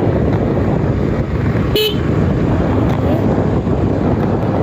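Steady wind rumble on the microphone while riding a scooter, with one short vehicle horn toot about two seconds in.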